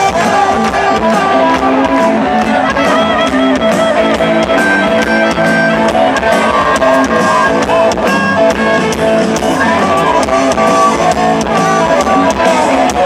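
Live rock band playing, with a harmonica lead held and bent over electric guitar and a steady drum beat, recorded from within the audience.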